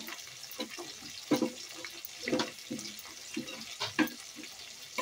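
A spoon stirring wet spice paste in a stainless steel bowl: irregular soft clicks and scrapes of the spoon against the steel, with wet squelches of the paste.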